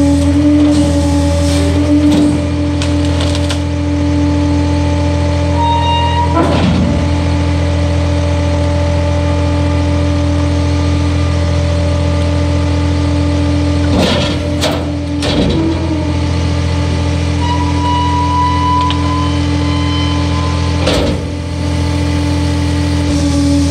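2008 Freightliner M2 106 rear-load garbage truck running a packer cycle: the diesel engine drones steadily under hydraulic load as the packer blade sweeps the hopper and compacts the bags. Loud metal clanks come about six seconds in, twice around the middle, and again near the end, and a thin whine rises at times.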